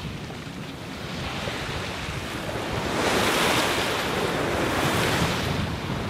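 Sea rushing past the hull of an Allures 51.9 sailing yacht under way, with wind buffeting the microphone. The rush swells about halfway through and eases near the end.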